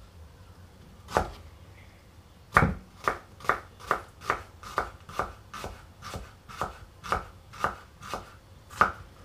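Knife chopping onion on a wooden cutting board: one cut about a second in, then a steady run of sharp knocks of the blade on the board, about two a second.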